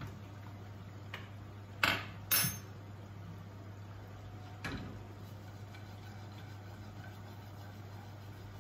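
Cooking utensils knocking against a frying pan and the counter: a faint click about a second in, two sharp clinks about two seconds in, and one more near five seconds, over a steady low hum.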